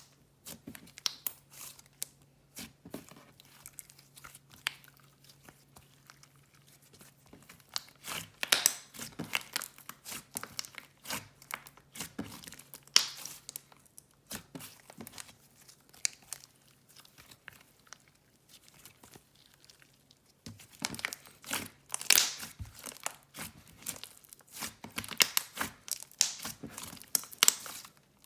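Inflated slay slime mixed with jelly cubes being stretched, squeezed and poked by hand, giving crackly runs of clicks and pops. The clicking is sparse at first, busy from about a third of the way in, drops off, then picks up densely again for the last part. A faint steady hum sits underneath.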